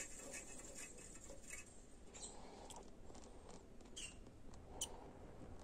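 Faint, scattered small clicks and taps of hand work on a bolt while thread locker is applied to it, with a few sharper ticks about midway and near the end.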